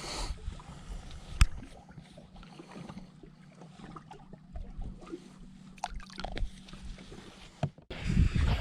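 Boat ambience with a steady low hum and scattered small clicks and knocks. One sharp knock comes about a second and a half in, and a burst of low rumbling noise comes near the end.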